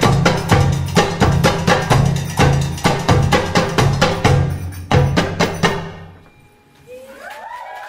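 Percussion-led tribal fusion belly dance music: quick, evenly spaced drum strikes over a low bass line, ending with a last hit about six seconds in and fading out. Near the end, audience voices start cheering.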